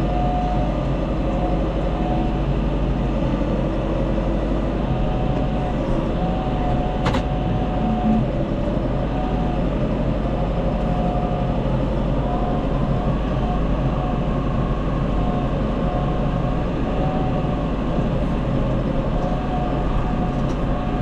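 Tractor engine running steadily under load while handling round hay bales, with a thin higher whine that comes and goes over the drone and one sharp click about seven seconds in.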